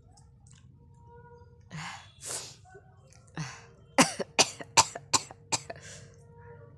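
A person coughing deliberately for a coughing challenge: three separate coughs, then a quick run of about six hard coughs.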